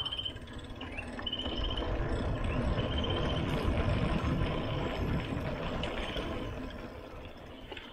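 Wind buffeting the camera microphone and mountain bike tyres rumbling on a concrete road while riding, swelling about halfway through and then easing off. A short high chirp repeats every second and a half or so in the first few seconds.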